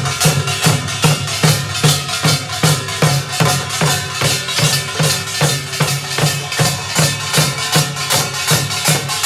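Korean pungmul (nongak) farmers' band playing: barrel drums and small hand drums beaten in a fast, steady rhythm of about four to five strokes a second.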